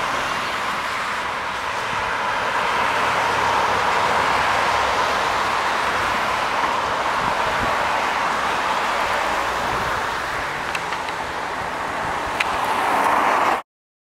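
Road traffic: cars passing with steady tyre and engine noise that swells and eases as vehicles go by. A few faint ticks come near the end, and the sound cuts off abruptly.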